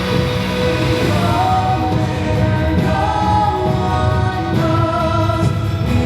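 Show score music: an orchestral track with a choir singing long held notes, played loud and steady.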